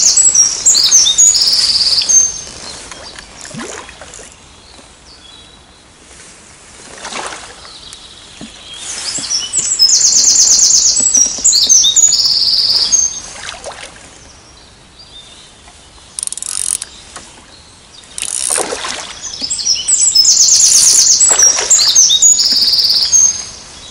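A songbird singing a short, loud, high phrase that opens with a fast trill and ends in a few separate notes, three times about ten seconds apart.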